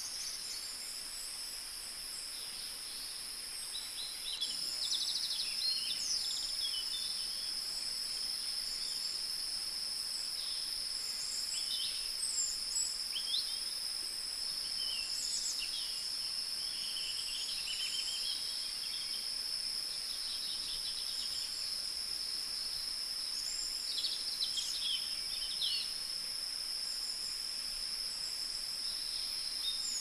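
Rainforest ambience: a steady high-pitched insect drone with many short bird chirps and calls scattered over it, getting a little louder about four seconds in.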